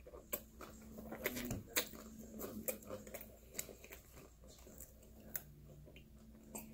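Close mouth sounds of a person eating pizza: chewing with scattered wet smacks and clicks, then sipping and swallowing from a plastic drink bottle in the second half.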